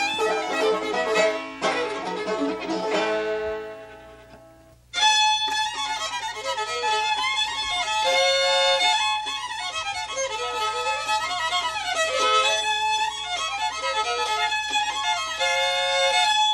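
Music fades out over the first four seconds; then, after a brief gap, two fiddles start playing an old-time fiddle tune together, bowing a lively, moving melody.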